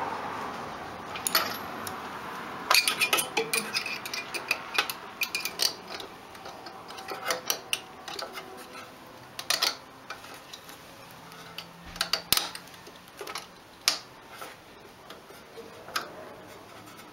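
Irregular sharp metallic clicks and clinks of hand tools being handled, in uneven clusters with short pauses between them.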